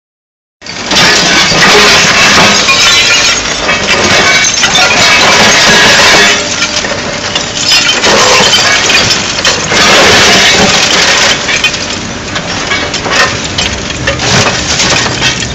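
Liebherr 944 demolition excavator tearing down a wall: masonry and debris breaking and crashing with clinks, loud and continuous.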